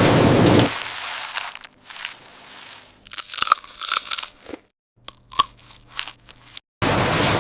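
Steady machine noise cuts off under a second in. It is followed by several seconds of scattered crisp crunching and crackling of potato chips, broken by brief silences. The steady noise starts again near the end.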